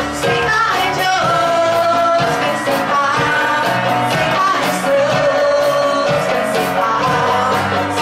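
Music with a singer carrying a melody over a band's bass and drums, a worship song.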